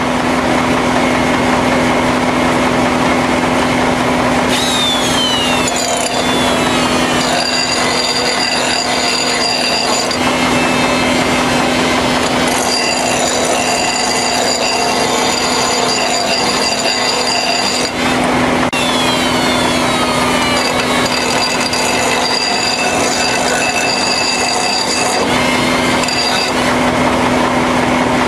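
Air-powered die grinder running at speed, grinding the cutting edge of a steel finishing-mower blade. It makes a steady loud whine, and high grinding tones come and go in long stretches as the stone bears on the blade.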